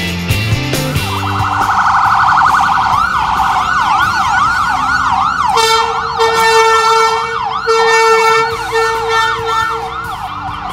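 Ambulance siren passing close by: a rapid warble for the first couple of seconds, then a yelp sweeping up and down about twice a second. Past halfway, two long steady horn blasts sound over the siren.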